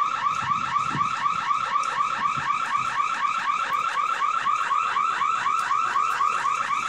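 Electronic alarm siren going off, a rapid repeating chirp of about five falling whoops a second, steady and unbroken.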